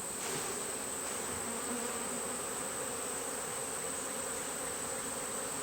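Honeybees from an opened hive buzzing steadily in a dense hum, stirred up and unsettled by the hive being pulled apart.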